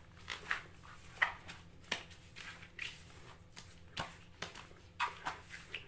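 Hands kneading and rubbing soft, oily shortbread dough, making faint, irregular sticky squishes and pats, with two sharp clicks about two and four seconds in.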